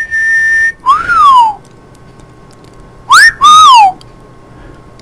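Loud whistling in a string of swooping notes: a held high note at the start, then a note that rises and falls about a second in, and a quick upward swoop followed by a falling note about three seconds in, with a quiet gap between.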